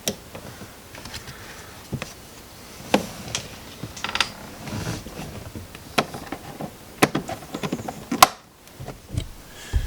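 Irregular clicks and knocks of hand tools and small parts being handled, with a brief rattle about four seconds in.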